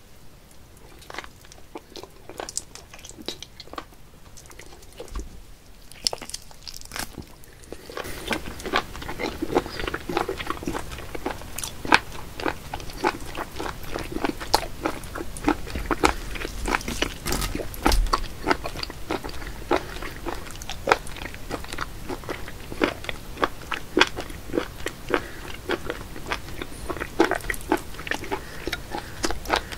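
A person chewing raw live small octopus: many smacking, clicking mouth sounds, sparse at first, then dense and louder from about eight seconds in.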